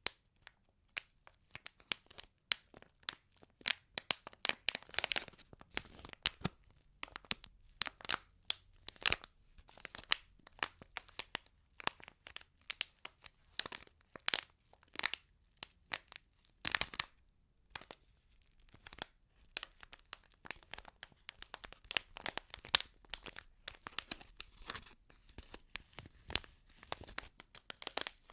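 ASMR crinkling and sticky peeling sounds: dense, irregular crackles and tearing noises as a crinkly, sticky material is worked close to the microphone.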